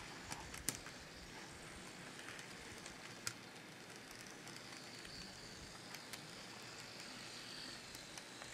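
Faint running noise of an N scale model coal train, loaded hopper cars rolling along the track, with a few sharp clicks and a faint high whine in the second half.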